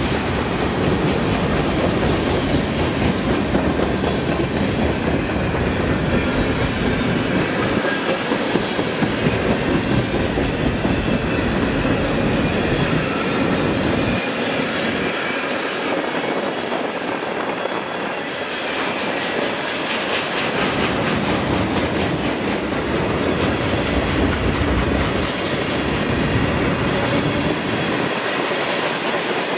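Freight cars of a passing train rolling by close at hand: a steady rumble and clatter of steel wheels over the rail joints.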